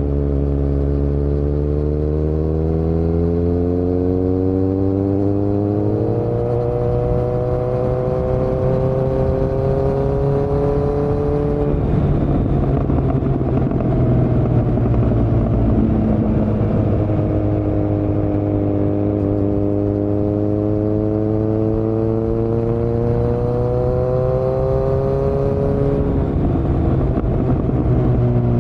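2018 Kawasaki Z900's inline-four engine running loud through a Yoshimura muffler and Delkevic headers with no dB killer. It pulls up in pitch in long steady sweeps, with the note breaking about twelve seconds in and dropping about twenty-six seconds in, as at gear changes.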